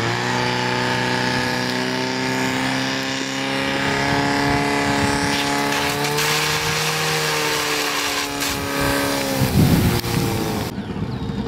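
Portable fire pump engine running at high revs as a steady, even drone, rising slightly in pitch midway and dropping off about nine and a half seconds in. A hiss runs alongside and cuts off near the end.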